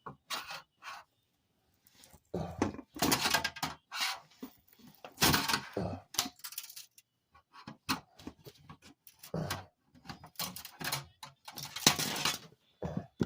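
A flathead screwdriver prying and scraping at a TV circuit board's gold-contact strip: irregular scrapes, clicks and knocks of metal against the board, with short pauses between them.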